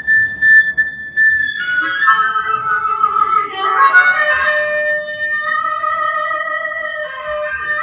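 Harmonica playing: a single high held note, then a flurry of notes about two seconds in that settles into sustained chords.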